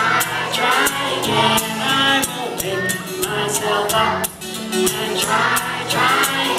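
A group of children and adults singing a song chorus together, over a strummed acoustic guitar keeping a steady beat.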